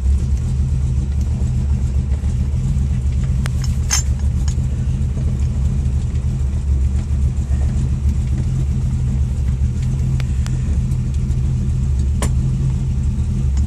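Ford Model T hot rod's engine running steadily at low speed with a deep, even rumble, heard from the driver's seat as the car is driven. A couple of sharp clicks, about four seconds in and again near the end.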